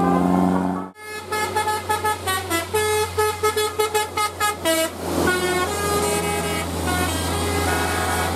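Bus telolet horn, a multi-tone musical air horn: a low held note cuts off about a second in, then a fast tune of short changing notes gives way to longer held notes near the end. The bus engine's steady low drone runs underneath.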